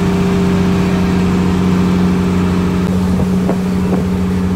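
Engine of a motorised outrigger boat (bangka) running steadily at cruising speed, a loud, even drone with a strong low hum.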